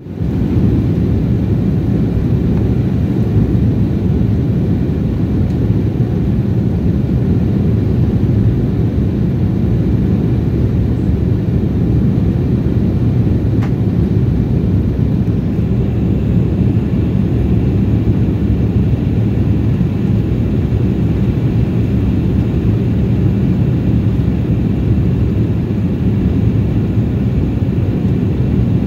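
Steady cabin noise inside a jet airliner flying level above the clouds: a constant low rumble of engines and rushing airflow that does not change.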